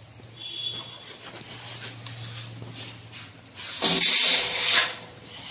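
Raw green papaya being peeled and cut against a boti blade: faint scraping strokes, then one loud hissing slice lasting just over a second, about four seconds in.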